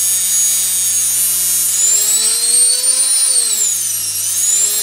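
Universal brushed washing machine motor running on mains with a high whine and a steady low hum. About two seconds in the whine rises in pitch, then drops around four seconds and climbs again near the end as the motor is slowed by loading its shaft by hand and then freed.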